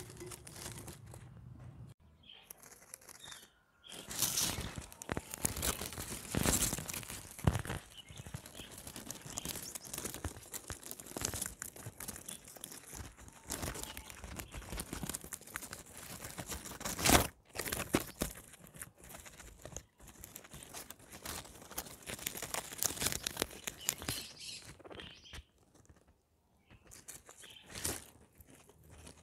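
Guinea pigs eating: a fast, irregular run of crunching bites and tearing of plant food, with short pauses now and then.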